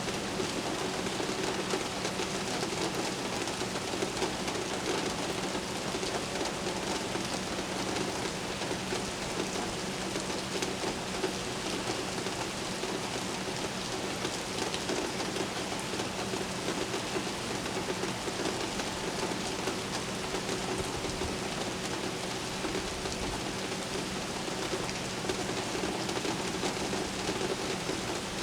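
Steady rain falling and pattering on surfaces, an even unbroken wash with no thunderclap, over a steady low hum.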